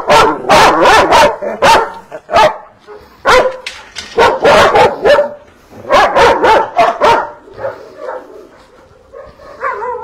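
Kennelled dogs barking repeatedly in loud, overlapping clusters. The barking thins out and grows quieter over the last couple of seconds.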